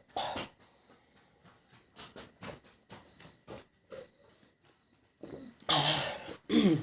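Close-miked chewing and mouth sounds of someone eating: scattered wet smacks and clicks. About six seconds in, a short loud vocal sound with a falling pitch.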